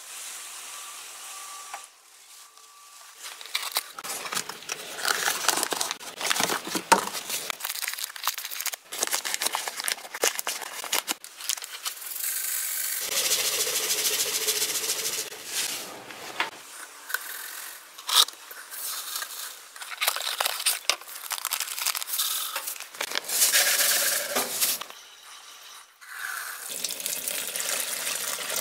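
Irregular bouts of crinkling, scraping and rustling handling noise, starting and stopping every few seconds.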